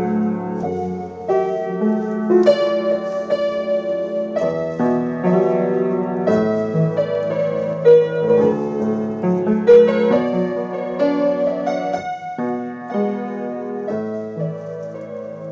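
Background piano music: chords under a melody, the notes changing about every half second.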